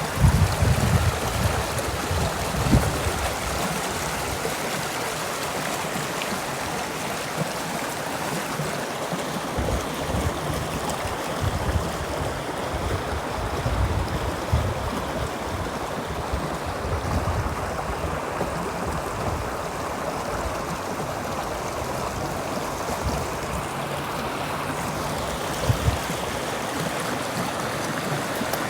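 A stream or river running steadily, a continuous rushing of water with irregular low bumps, strongest in the first few seconds and again near the end.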